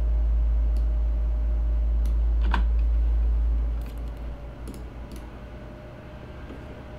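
A steady low rumble that fades out about four seconds in, with a few sharp computer mouse clicks as a chess move is made on screen, the loudest about two and a half seconds in.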